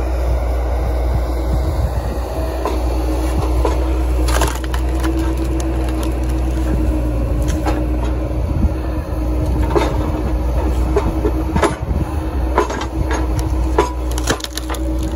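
Wood rounds cracking and splintering with many sharp snaps as the wedge of a homemade hydraulic overhead wood splitter presses down through them. The Bobcat skid steer that powers it runs with a steady hum underneath.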